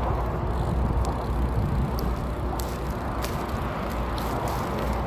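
Wind rumbling on the microphone and road noise while riding a hybrid bicycle, with scattered light clicks and rattles.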